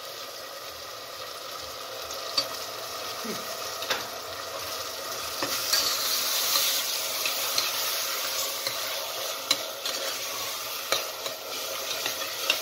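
Onions, tomato paste and chopped tomato sizzling as they fry in a stainless steel pot while being stirred with a metal spoon, which clicks against the pot now and then.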